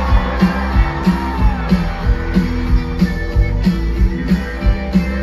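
Live rock band playing through a concert PA and heard from the crowd: a steady drum beat of about three hits a second under bass and electric guitar.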